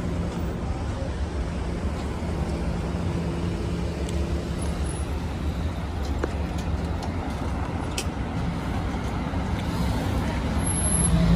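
Road traffic on a multi-lane city street: cars driving past with a steady engine and tyre rumble, growing louder near the end as a vehicle comes close.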